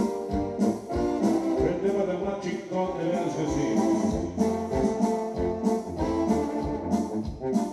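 Recorded dance music with brass horns over a steady beat, played loud through a sonido's speaker stacks.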